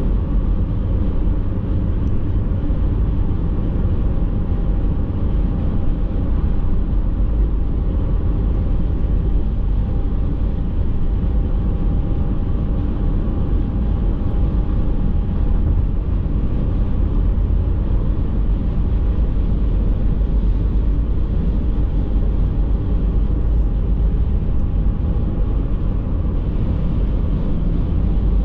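Steady road and engine noise heard inside a car cruising along a multi-lane road: a continuous low rumble with a faint steady whine above it.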